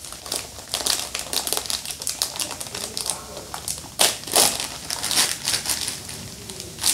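Plastic vacuum hanging bag crinkling as it is handled while its plastic hanger is pulled into place, with irregular clicks and crackles and a few louder sharp clicks about four seconds in.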